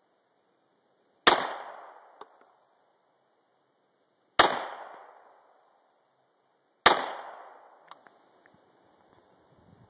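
Three single gunshots a few seconds apart, each followed by an echo that dies away over about a second, with a faint click after the first and third.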